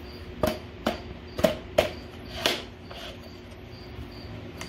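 Sharp plastic clicks and knocks from a Ryobi P782 tripod stand light being handled and lowered, about five in the first three seconds. A faint high chirp repeats about twice a second behind them.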